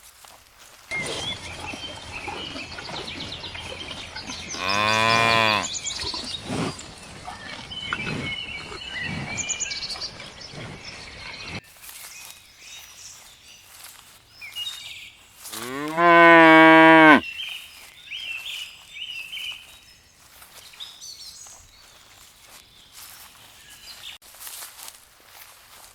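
Cows mooing: a moo about five seconds in, then a louder one of about a second and a half near the middle.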